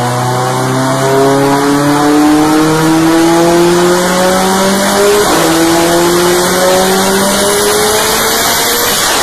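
Car engine with a turbo intake, run at full load while the car stays put, likely on a dyno, its note climbing steadily as the revs rise. About five seconds in the pitch drops briefly, as at a gear change, and then climbs again.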